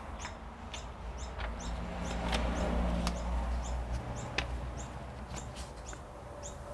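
A small bird chirping, one short high call about twice a second in an even rhythm, over a low steady hum. Three sharp clicks from cooler mounting hardware being handled come between about two and four and a half seconds in.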